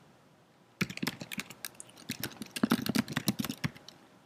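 Typing on a computer keyboard: after a brief quiet moment, a quick, uneven run of keystroke clicks with short pauses as a shell command is keyed in.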